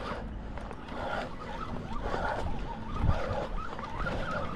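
Road traffic passing, a steady low rumble mixed with open-air noise.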